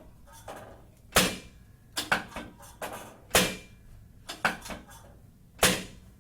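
Thompson chiropractic drop table's drop sections snapping down under the adjusting thrust: three loud clacks about two seconds apart, each with a few lighter clicks shortly before it.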